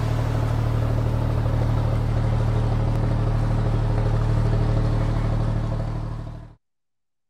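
Outro sound design: a steady low rumbling drone with a hiss over it and a slight pulse, fading out about six seconds in and then silence.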